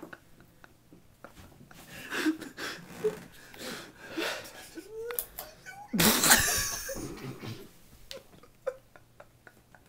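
Young men laughing and giggling, with a loud burst of laughter about six seconds in.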